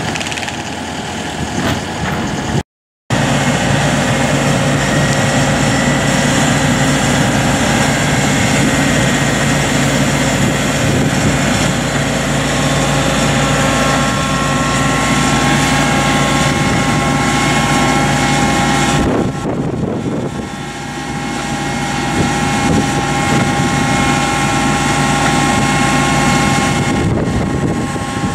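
John Deere 135G excavator's diesel engine running steadily under load as it lifts a fiberglass pool shell, with steady whining tones over the engine sound. The sound cuts out for a moment about three seconds in and dips briefly around twenty seconds in.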